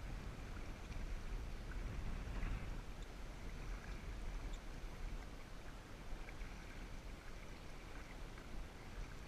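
Steady, quiet rush of creek water, with a low wind rumble on the microphone and a few faint ticks.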